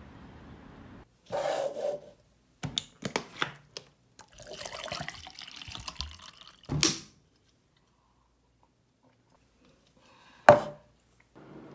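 A plastic water bottle being handled at a desk: sharp clicks and knocks, water pouring into a tumbler, then the bottle set down on the wooden desktop with a loud thump near the end.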